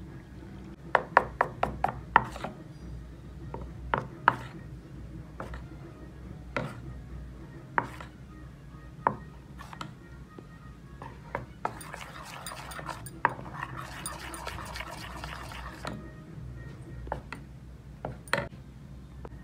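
Metal spoon clinking and scraping against a stainless steel bowl while stirring flour and water into batter. A quick run of clinks comes about a second in, then scattered taps, with a few seconds of brisk wet stirring near the middle.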